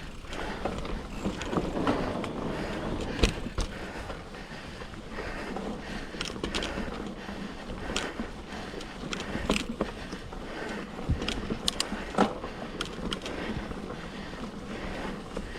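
2007 Cannondale Rush mountain bike riding along a dirt trail: steady rush of tyre and wind noise, with scattered sharp clicks and knocks from the bike over bumps.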